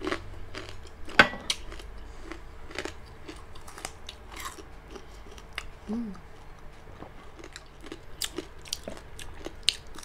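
Crisp deep-fried pork chicharon bagnet being bitten and chewed: crunching, with the sharpest, loudest crunch about a second in and a run of smaller crunches after it.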